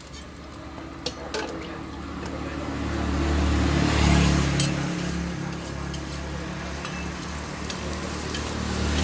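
A motor vehicle drives past close by on the street, its engine rumble swelling to the loudest point about four seconds in and fading, with another starting to come up at the end. Under it a roti fries on a flat oiled griddle, and a metal spatula clicks against the griddle a couple of times early on.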